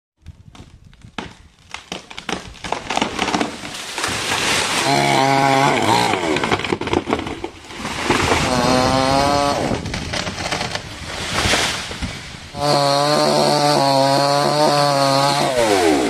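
Chainsaw cutting a tree branch, revved hard with its pitch rising and falling as the throttle is worked. It starts with a ragged crackle and then holds at full speed for the last few seconds.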